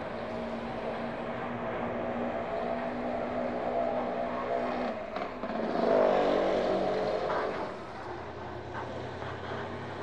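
Street traffic: motor vehicle engines running, with one vehicle passing close about six seconds in, loudest then, and fading by about eight seconds, leaving a low engine hum.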